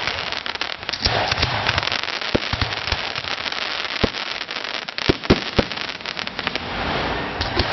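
Fireworks going off: dense crackling with a handful of sharper bangs scattered through.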